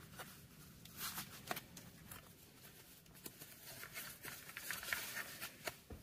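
Faint handling noises at a workbench: light rustling with a few soft, scattered clicks.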